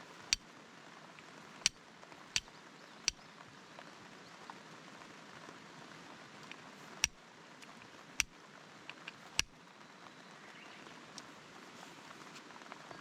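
Steady rain falling, with about seven sharp ticks scattered through it, as of heavier drops striking a hard surface.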